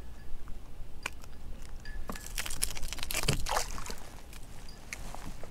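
Water splashing and trickling as a small speckled trout is unhooked and let go beside a kayak, the splashing strongest between about two and three and a half seconds in, after a sharp click about a second in.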